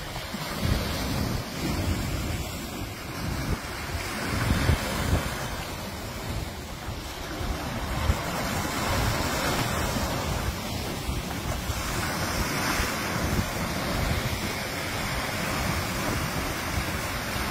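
Lake waves washing in and breaking over a rocky shoreline in repeated surges, with wind buffeting the microphone.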